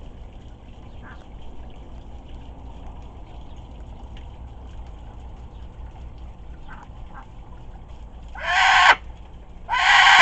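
Moluccan cockatoo giving two loud squawks about a second apart near the end, each about half a second long, after some faint short chirps.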